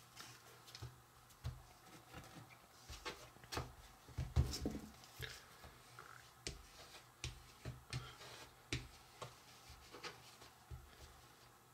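Scattered light taps and knocks of hands and small utensils working dough on a mat, with a louder cluster about four to five seconds in.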